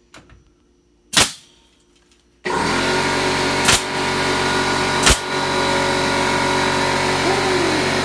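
Pneumatic brad nailer firing a nail into wooden trim about a second in. About two and a half seconds in, an air compressor motor starts and runs steadily, and the nailer fires twice more over it.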